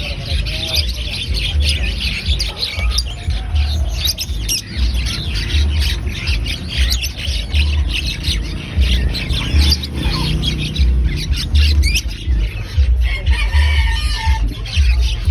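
A flock of poultry calling and squawking, many short overlapping calls throughout, over background music with a pulsing bass beat.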